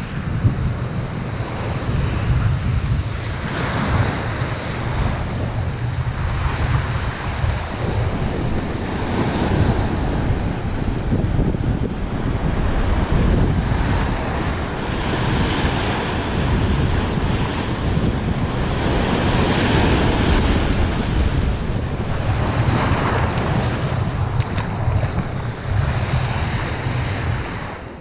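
Surf breaking and washing in over rocks at the shoreline, swelling in repeated rushes every few seconds, with wind buffeting the microphone as a low rumble underneath.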